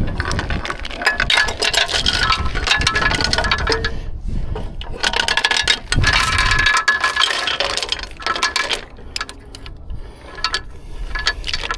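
Half-inch steel lifting chain rattling and clinking link against link as it is handled and fed around the machine's frame, in dense runs with a short lull about four seconds in and sparser clinks later on. A low rumble sits underneath for the first seven seconds.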